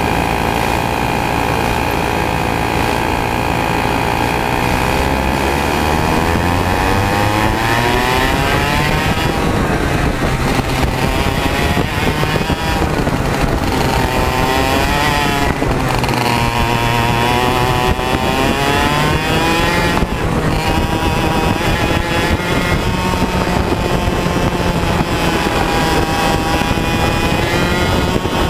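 A 100cc two-stroke TaG kart engine, heard from on board among other karts' engines. Its pitch holds steady at first, climbs from about five seconds in as the race gets going, then keeps rising and falling as it revs up and lifts through the corners.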